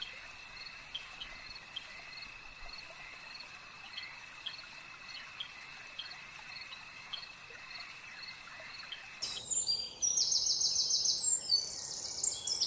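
Night-time cricket ambience: a steady high trill with short chirps about twice a second. About nine seconds in it gives way to birdsong, a louder run of repeated high twittering.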